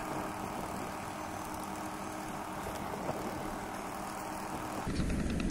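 A steady motor hum, an even drone with a held pitch. A low rumble comes in near the end.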